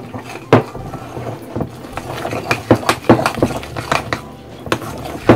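Metal spoon beating thick gram-flour (besan) batter in a bowl: a wet stirring scrape with irregular clacks of the spoon against the bowl, about two a second.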